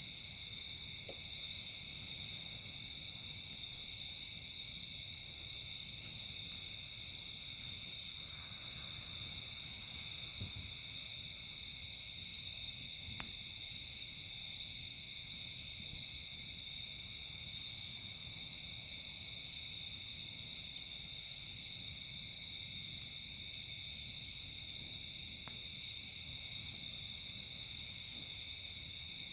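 Outdoor insect chorus: crickets making a steady shrill trilling, and a very high buzzy trill that swells and fades every few seconds. A single sharp pop sounds about halfway through.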